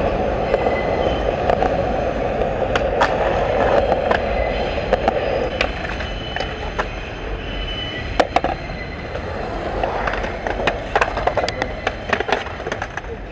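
Skateboard wheels rolling on concrete, a steady rumble that fades about five seconds in and returns near the end, with sharp clacks and knocks of the board hitting the ground scattered throughout.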